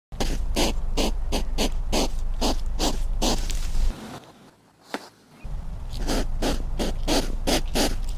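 Hedgehog puffing and snuffling in quick, regular huffs, about three or four a second, pausing for about a second and a half midway before starting again.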